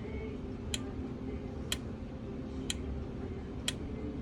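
Sharp, regular clicks, four in all, about one a second, as the pinball board's solenoid test steps from driver to driver, over a steady low hum.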